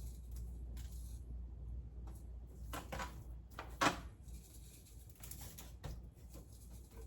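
Kitchen handling sounds: a few light knocks and rustles, with one sharper knock about four seconds in, over a low steady hum.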